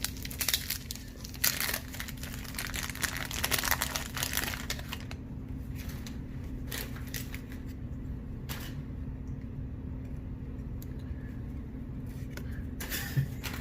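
Crinkling and tearing of a 1991 Topps baseball card pack wrapper as it is opened, dense for about the first five seconds, then sparser rustling and light clicks of cards being handled. A steady low hum runs underneath.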